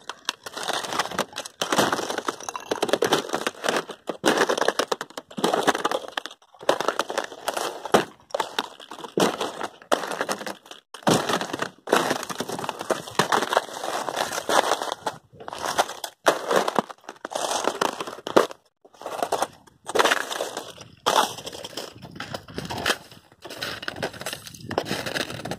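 Thin plates of surface ice on a frozen river cracking and crunching under hiking boots, step after step, each footfall a burst of crackling with short pauses between.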